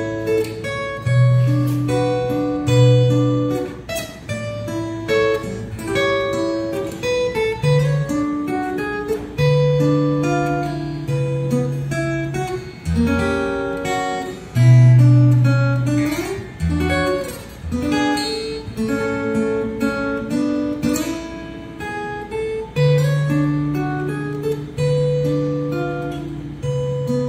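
Solo acoustic guitar played fingerstyle: a melody picked over held bass notes, with plucked chords along the way.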